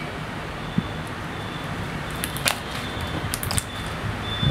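Pink glitter slime with small beads being stretched and squished by hand, giving a few sharp, clicky pops over a steady hiss, most of them about halfway through and again a second later.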